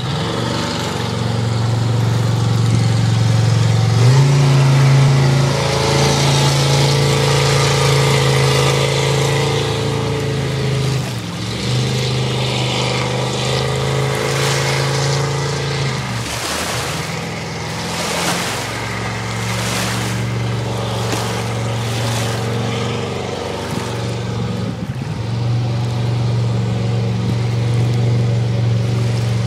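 Small jet boat's engine running at speed, its pitch stepping up and down several times as the throttle changes and the boat turns. About halfway through, a few seconds of rushing noise come and go over the engine.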